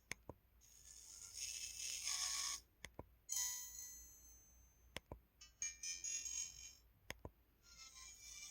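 LG-SH130 mobile phone playing its message alert tones one after another through its own speaker: short, high-pitched electronic chimes about a second long. A sharp click comes before each tone, about every two seconds.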